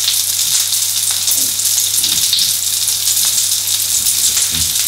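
Red bell pepper rings sizzling steadily in hot oil in a nonstick frying pan.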